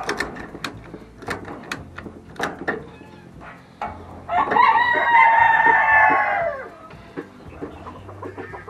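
A rooster crowing once, a single long call of about two and a half seconds that falls away at the end, a little over four seconds in. A few sharp clicks come before it.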